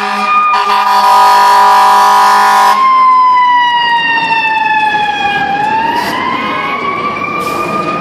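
Fire engine's air horn sounding over its wailing siren. The horn cuts off about three seconds in; the siren goes on, its pitch sliding down and then climbing back up near the end.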